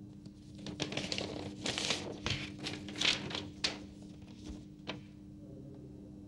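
Sheets of paper rustling as hands swap one document for another: a run of irregular rustles and crinkles lasting about four seconds, stopping about a second before the end, with a faint steady hum underneath.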